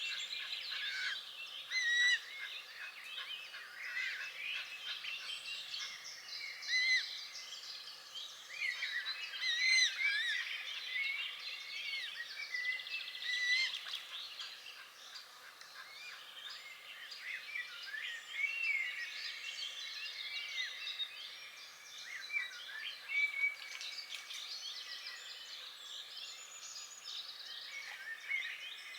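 Dense chorus of many small songbirds singing and calling at once: overlapping quick chirps, trills and short whistles, steady throughout with no pause.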